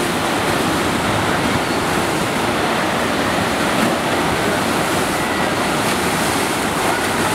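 Steady, loud rushing of water from a FlowRider sheet-wave machine: a thin sheet of pumped water streaming up the ride surface.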